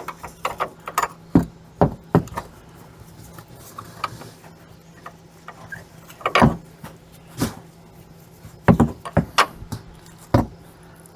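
Irregular metal knocks and clinks of hand tools and parts being worked at a pickup's front shock absorber mount, a dozen or so sharp hits spread out with pauses between them, over a faint steady hum.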